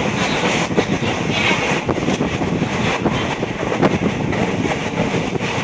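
Passenger train running along the track, heard from on board: a steady rumble of wheels and carriage, with faint irregular clacks and wind buffeting the microphone.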